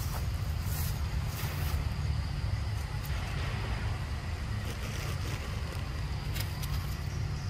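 Outdoor forest ambience: a steady low rumble of wind on the microphone under a thin, steady high insect drone, with a few faint clicks about a second in and again about six seconds in.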